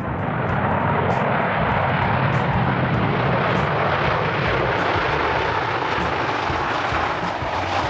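Airbus A380's four turbofan engines during touchdown and rollout on a wet runway: a steady, loud rushing jet noise with a faint whine and a low rumble.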